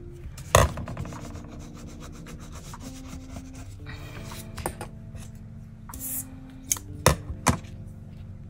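Hands rubbing and pressing paper collage pieces down onto a planner page, with several sharp clicks and taps, the loudest about half a second in and twice near the end. Soft background music with held notes runs underneath.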